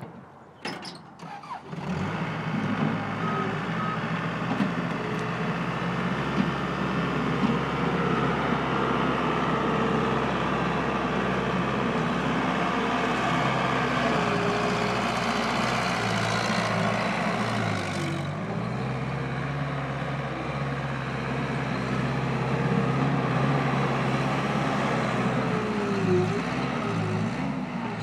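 Case 75XT skid steer's 75-horsepower diesel engine starts up about two seconds in and runs steadily, with a hydraulic whine that shifts in pitch as the machine is worked. The engine speed dips briefly a few times near the end.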